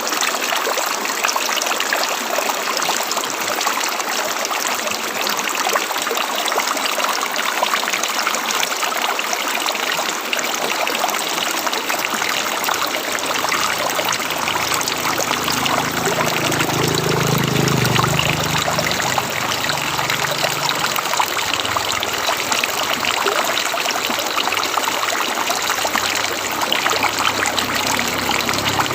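River water flowing steadily, with a deeper low sound coming and going in the second half.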